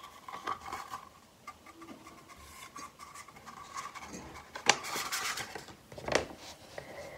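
A rolled paper letter tied with string being untied and unrolled by hand: quiet rustling and rubbing, with sharp paper crinkles a little before five seconds and about six seconds in as the sheet is opened out.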